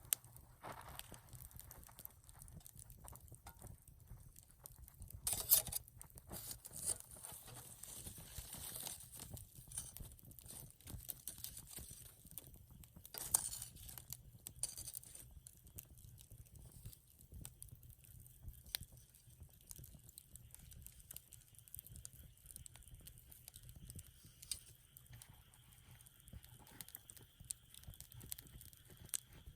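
Wood campfire burning, with faint scattered crackles and small pops and two louder crackling bursts, one about five seconds in and one about thirteen seconds in.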